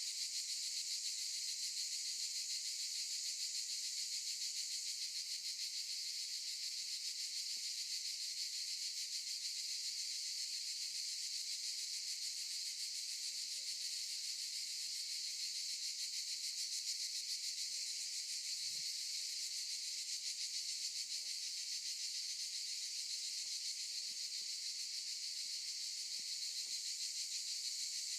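A chorus of cicadas buzzing, a dense, steady high-pitched hiss without breaks.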